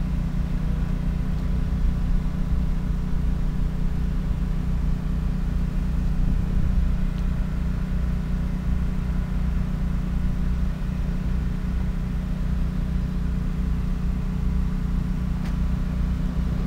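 Steady low hum of a passenger train's diesel power running, with a few steady tones over a low rumble.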